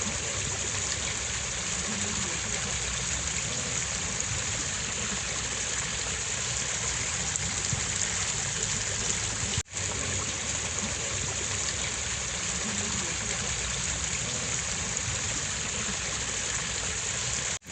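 Steady rush of running water, like a stream flowing, that breaks off for an instant about ten seconds in and then carries on unchanged.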